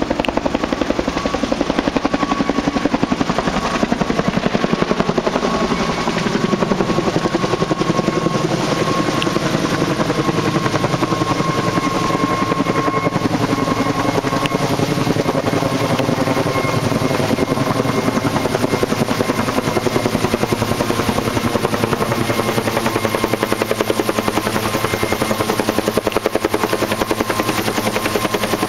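Firefighting helicopter's rotor beating steadily in rapid, even pulses, with a thin steady whine above it.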